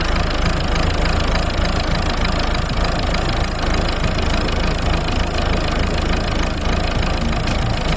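1.6 HDi four-cylinder diesel engine idling steadily.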